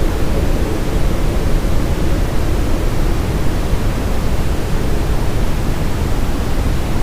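Steady brown noise with reverb: an even, deep rushing hiss, strongest in the bass and thinning toward the treble.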